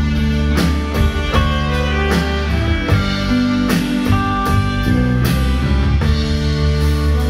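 Live band playing a pop song's instrumental intro: a drum kit keeping an even beat under bass guitar and sustained melody notes.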